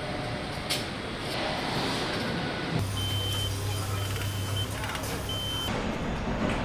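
Factory-floor machinery noise. In the middle a low hum sets in, along with three short high electronic beeps like a machine's warning beeper.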